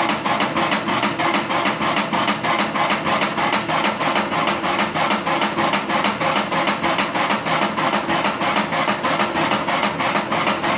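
Motor-driven drum of a homemade electric coffee roaster turning, a steady, fast, even mechanical pulsing that is a little bit loud because the drum is not yet insulated.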